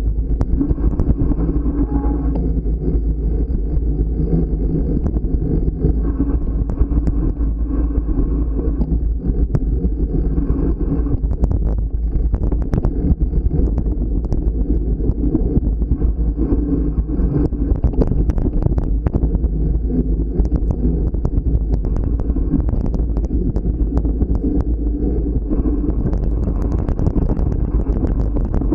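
Steady low rumble of wind on the microphone and tyres rolling on a dirt trail while riding a Trek Farley 9.6 fat bike, with frequent sharp clicks and rattles from the bike over bumps.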